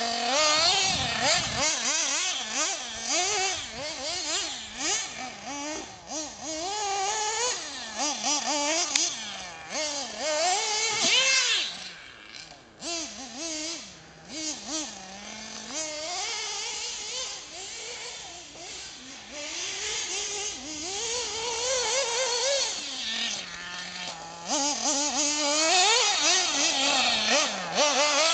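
Small nitro engine of a Hobao Hyper 7 1/8-scale RC buggy, revving up and down over and over as it is thrashed around a dirt track. The engine is fainter through the middle while the car is far off, and louder again near the end as it comes close.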